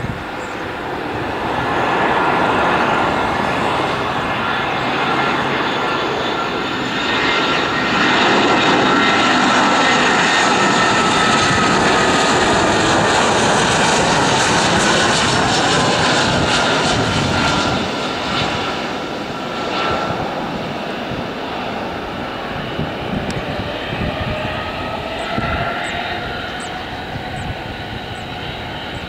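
Jet engines of an Airbus A320 airliner on approach and landing. The engine noise with its whine builds for the first couple of seconds and is loudest as the aircraft passes close by, its pitch sliding slowly down. After that it eases to a lower steady level.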